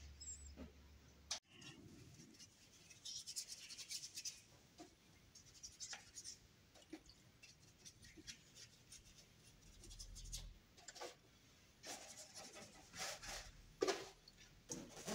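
Faint, intermittent scratching and rubbing of a small brush scrubbing grime off a car engine, with a few light knocks.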